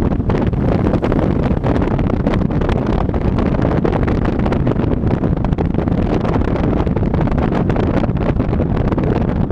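Wind buffeting hard on the microphone of a camera mounted outside a moving car, over a steady low rumble of road noise.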